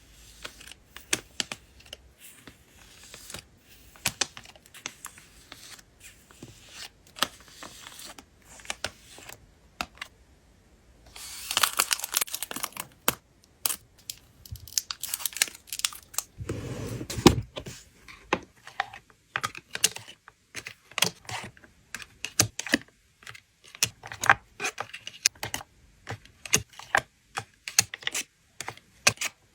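Photocard packing materials (plastic sleeves, toploaders and wrapping) being handled by hand: a run of sharp taps and clicks, with a crinkling stretch about twelve seconds in and a louder, coarser rustle or tear around seventeen seconds.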